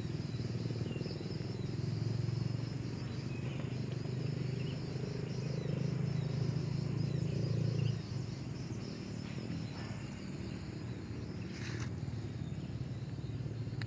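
Outdoor rural ambience: a steady low rumble with a high insect drone and a few faint short bird chirps. The rumble drops off about eight seconds in.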